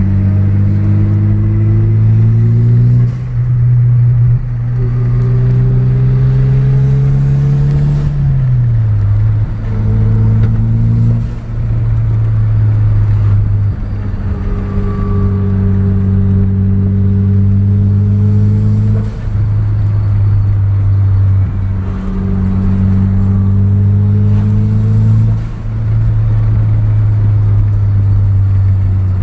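Vehicle under way with a transfer case whining: a horrible sound, a tone that climbs slowly with speed and drops back every few seconds, over a low steady drone.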